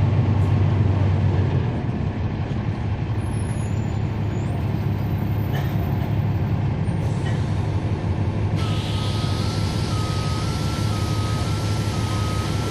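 Cummins ISL9 six-cylinder diesel engine of a NABI 40-foot transit bus running steadily, a deep hum heard from the rear of the bus. About eight and a half seconds in, a hiss of air and a steady high tone start and carry on alongside the engine.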